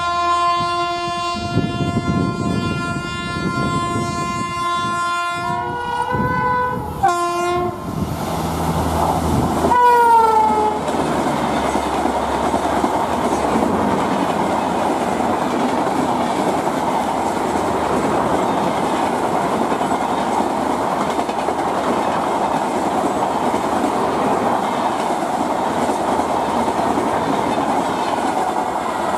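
WAP7 electric locomotive's horn: one long blast of about five seconds, then two short bending 'meow' notes. A last short note slides down in pitch as the engine passes. After that the coaches of the express run by at speed with a loud, steady rush and clatter of wheels on rails.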